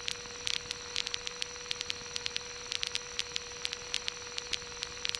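Steady hiss of a cockpit intercom or radio audio feed, with a faint steady tone and irregular crackling clicks of static several times a second.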